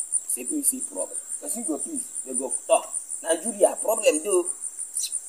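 Cricket chirping in a steady, rapid, even high-pitched pulse, with a man's voice talking quietly underneath.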